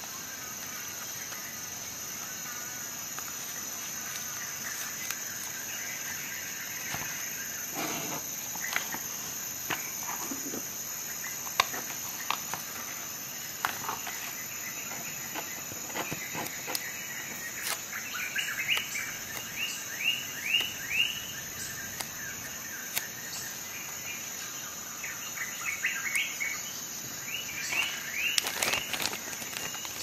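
Handling noise from a leather knife pouch and a small plastic bag: scattered light clicks and rustles over a steady high hiss. Quick runs of short, high chirps come in the background past the middle and again near the end.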